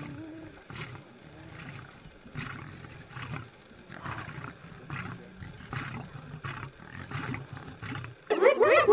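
Lion growling in short rough grunts, about two a second. Near the end a much louder animal call with many wavering pitches cuts in.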